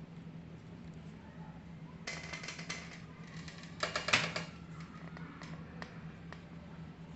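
Ballpoint pen writing on notebook paper: two short bursts of scratching about two and four seconds in, the second louder, over a faint steady low hum.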